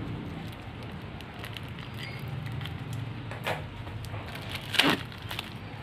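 Steady patter of rain, with scattered crinkles from plastic shrink-wrap being handled; one sharp crackle of the wrap near the end is the loudest sound.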